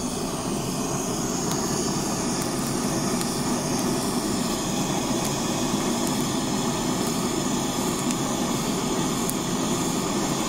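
Handheld kitchen blowtorch on a gas canister burning with a steady, even rushing hiss as its flame sears a piece of food on a skewer.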